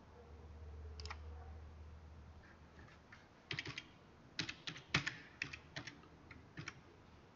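Quiet computer keyboard keystrokes: one tap about a second in, then short irregular runs of key taps from about three seconds in as numbers are typed in.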